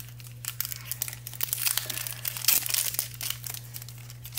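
Foil Pokémon booster pack wrapper crinkling and tearing as it is pulled open by hand: a dense run of sharp crinkles and crackles, busiest in the middle with one loudest snap about two and a half seconds in.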